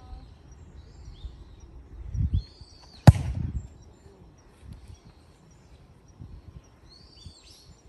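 A single sharp thump of a soccer ball being kicked hard off the tee in footgolf, about three seconds in, with a short low rumble just before it. Birds chirp faintly in the background.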